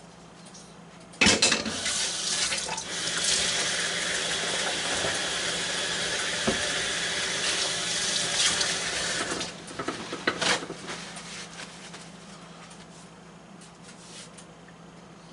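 Kitchen tap running into the sink for about eight seconds, turned on suddenly a little after a second in and off about nine and a half seconds in, followed by one short noise a second later.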